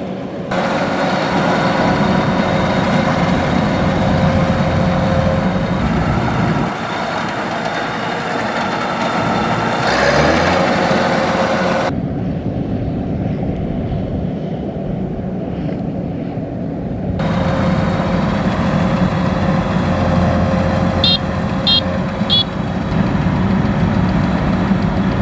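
Kubota DC-93 combine harvester's four-cylinder turbocharged diesel running steadily under harvesting load. The sound changes abruptly twice, near the middle and about two-thirds of the way through.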